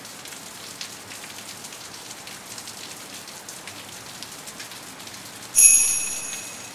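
Steady heavy rain. About five and a half seconds in, a high chime with several ringing tones strikes once and fades over about a second, a transition sting.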